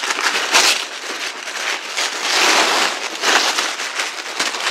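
Thin white wrapping paper crinkling, rustling and tearing as it is pulled open by hand, in a steady run of crackly rustles.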